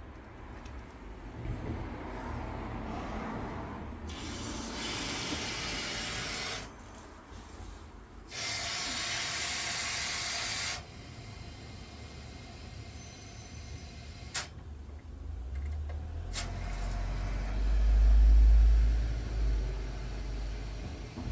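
Water hissing through an opened valve on a combi boiler's pipework, in two bursts of a few seconds each. A sharp click follows, then a low rumble near the end.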